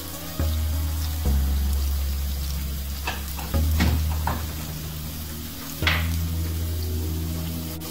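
Chopped garlic sizzling in extra virgin olive oil in a non-stick frying pan, with a few short scrapes or clicks from about three to six seconds in.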